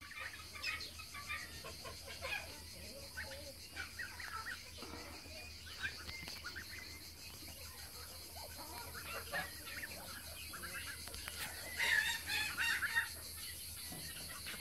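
Poultry calling: many short, high peeps from a brood of ducklings and goslings, with a louder cluster of fowl calls about twelve seconds in.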